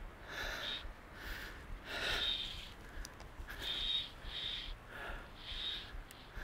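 A man's heavy, excited breathing in short, irregular puffs while he fights a large salmon on a fly rod.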